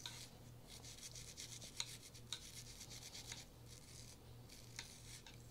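Bronze chamber brush on a cleaning rod scrubbing the chamber and locking-lug area of an AR-15 upper, twisted and worked in and out to break up debris: faint, repeated bristle-on-metal rubbing with a few light clicks.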